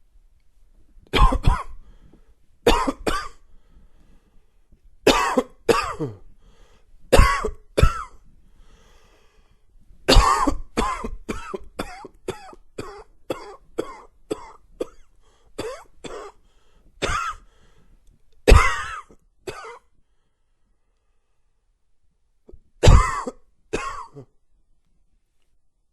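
A man coughing a dry cough, in single and double coughs, then a fast run of about a dozen short coughs from about ten seconds in, a few more after it, and a last pair near the end.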